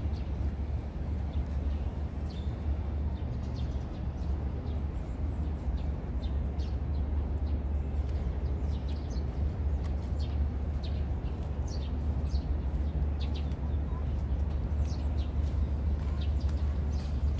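Small birds chirping in short, scattered high calls over a steady low rumble of background noise.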